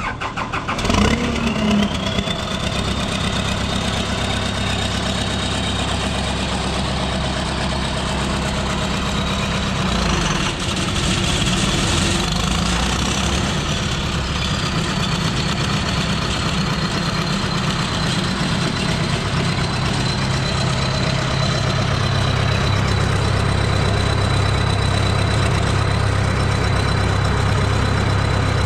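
Vermeer BC1500 wood chipper's engine cranking and catching at the start, then running steadily, with a high whine that rises as it comes up to speed. Its tone shifts briefly around the middle, and it runs deeper and a little louder over the last third.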